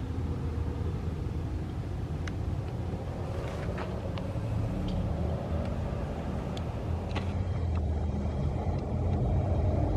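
A motor vehicle's low rumble that grows slowly louder, with a few faint ticks.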